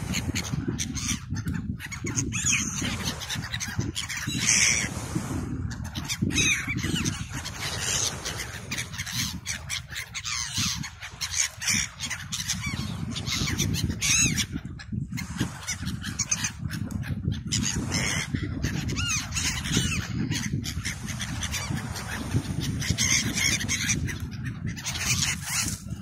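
A flock of gulls calling over and over as they swoop for thrown food, over a steady low rumble of wind and sea.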